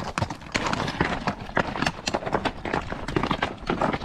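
Horse hooves clip-clopping on rocky trail ground, a quick, uneven run of hoof strikes.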